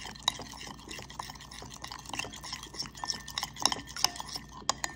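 A metal spoon stirring an oil-based vinaigrette in a white ceramic bowl: quick, irregular clinks and scrapes of the spoon against the bowl, with the wet sound of the stirred dressing.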